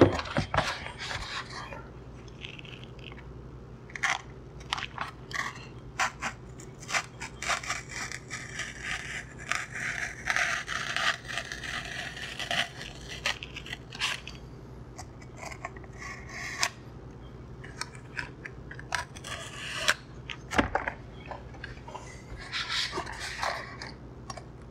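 Knife blade slicing EPP foam in a series of short crunching, scraping cuts, trimming away foam a little at a time.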